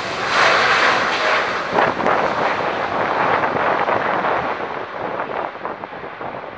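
Boeing 747-8F freighter's four GE GEnx-2B turbofans at takeoff thrust as it lifts off and climbs away: loud jet noise with a rough crackle, slowly fading as the aircraft moves off.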